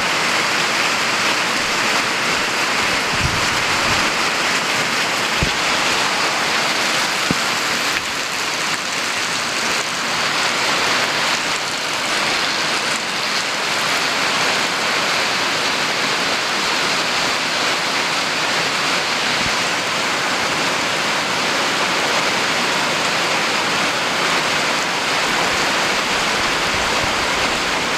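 Heavy rain falling on a metal roof: a loud, steady hiss that holds unbroken throughout.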